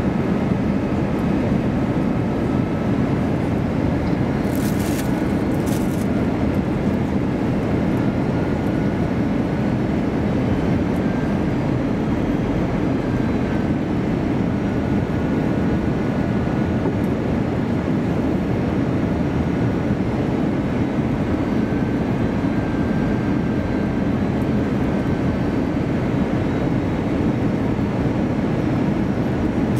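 Steady cabin noise inside an Airbus A321-200 airliner on its approach: the drone of the engines and the airflow, with a faint whine that wavers slightly in pitch. Two brief hisses come about five seconds in.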